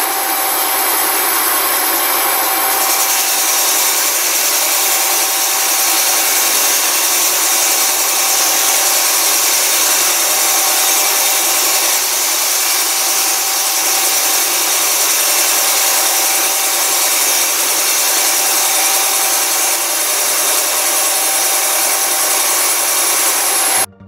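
CNC machining center vertical-turning the bore of a pump housing: the rotary table spins the part at 200 rpm against a 500 mm long tool under coolant spray, giving a steady, loud hiss of cutting and spraying coolant with faint whining tones. It cuts off suddenly near the end.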